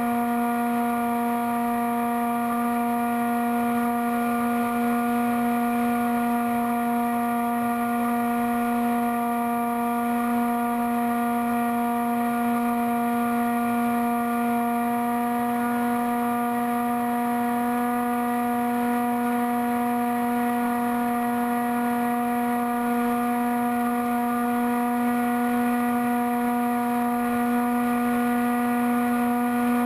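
HobbyKing Bixler foam RC plane's electric motor and propeller running at steady cruise throttle in flight, a constant pitched drone heard from on board.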